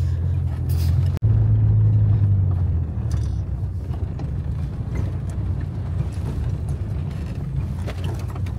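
Car engine and road noise heard from inside the cabin: a steady low drone. It cuts out sharply for an instant about a second in, then resumes and is somewhat quieter from about three seconds in.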